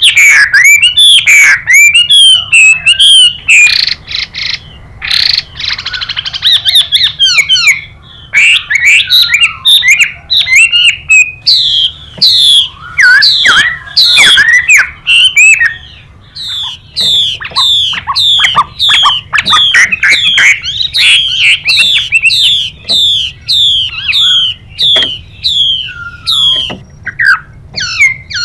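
Chinese hwamei singing loudly: a varied stream of rich whistled phrases, with a harsh, raspy stretch about five seconds in that fits the hissing 'xùy' call of a female hwamei. From about halfway the song turns to a fast run of repeated downward-sliding whistles, two or three a second.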